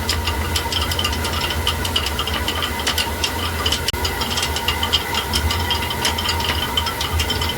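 Rapid, irregular ticking and rattling, many clicks a second, over a steady low hum.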